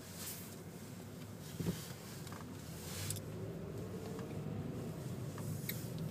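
Car running at low speed, heard from inside the cabin: a steady low engine and road rumble that slowly grows louder, with one short click about a second and a half in.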